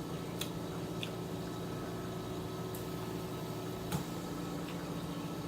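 Chewing of sticky honey garlic chicken wings: a few sparse, sharp wet mouth clicks, the sharpest about four seconds in, over a steady background hum.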